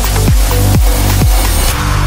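Electronic dance music with a steady kick drum, about two beats a second. Near the end the beat drops out, leaving held synth notes.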